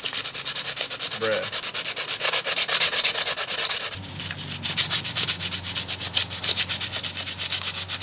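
Sandpaper rubbed by hand over a scooter bar clamp in quick back-and-forth strokes, about five or six a second, scuffing its finish to prepare it for painting.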